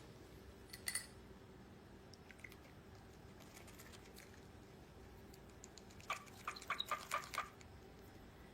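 Faint, light clicks and taps in a quiet room: a single click about a second in, then a quick run of several taps about six seconds in.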